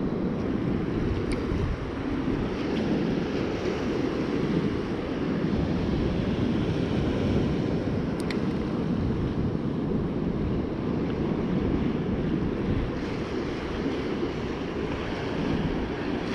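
Wind buffeting the microphone over rough surf breaking on the beach, a steady rumbling rush. Two faint clicks come about a second in and about eight seconds in.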